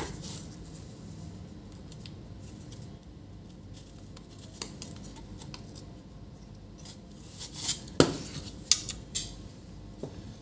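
Small metal hand tools clicking and snipping while a replacement diode is fitted to a monitor power supply circuit board: a few sharp clicks, clustered near the end, the loudest about eight seconds in, over a faint steady low hum.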